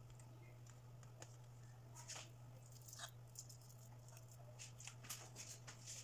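Faint rustles and light clicks of hands handling spring-roll wrappers and scooping cooked sticky rice from a frying pan, over a steady low hum. The clicks come in small clusters, more of them in the second half.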